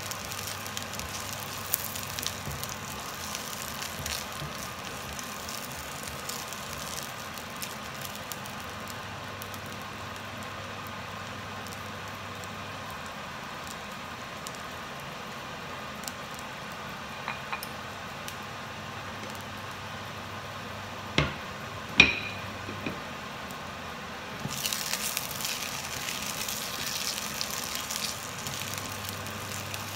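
Shallots, garlic, candlenuts and shrimp paste frying in a little oil in a pan, a steady low sizzle. Two sharp knocks come close together about two-thirds of the way through, and the sizzle grows louder near the end as the spatula stirs the pan.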